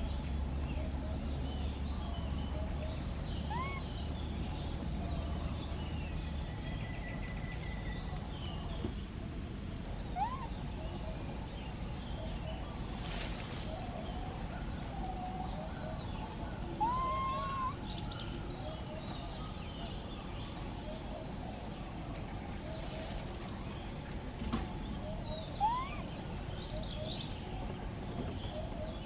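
Outdoor ambience: a steady hiss with many faint chirps and a few short calls that sweep upward in pitch, the loudest midway. A low rumble underneath stops after about six seconds.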